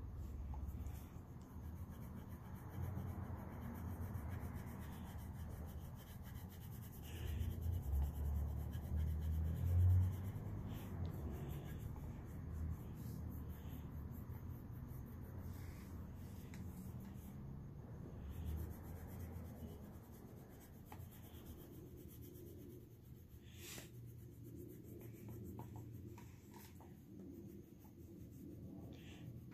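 Wax crayon rubbing back and forth on paper as a drawing is coloured in, with a few low bumps about a third of the way in.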